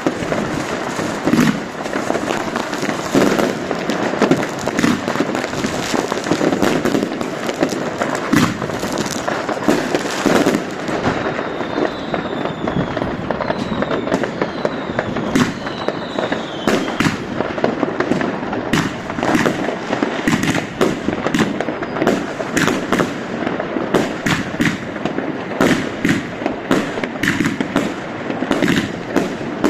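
Consumer fireworks going off in a dense, unbroken barrage: rapid bangs and crackling, with a few falling whistles about halfway through.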